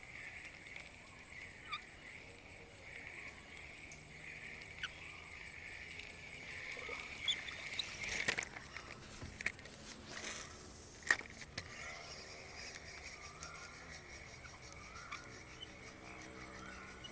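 Faint outdoor nature ambience: a steady, evenly pulsing chorus, with scattered sharp clicks and a short rush of noise a little past the middle.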